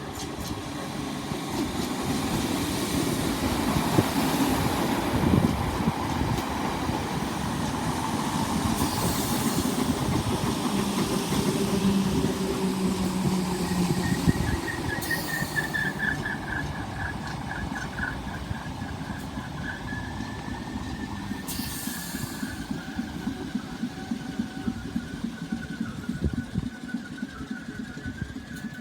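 Train running into a station: wheels rumbling and clattering on the rails, loudest in the middle. About halfway through a single high whine sets in, dropping slightly in pitch as the noise eases, consistent with the train slowing to arrive.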